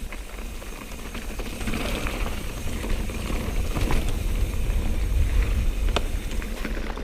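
Mountain bike rolling over loose dirt: tyres crunching and the bike rattling over the rough trail, with a few sharp clicks, over a steady low rumble of wind on the camera's microphone.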